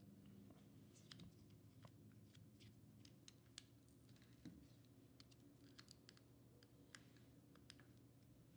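Faint, irregular small clicks and ticks of a small screwdriver and tiny screws being worked on the metal parts of a Nikon Ai-S 85mm f/2 lens during disassembly, over a low room hum.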